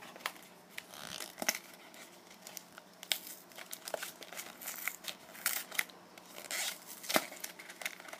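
Foil Pokémon booster pack wrapper being handled and torn open: irregular crinkling and tearing with sharp crackles.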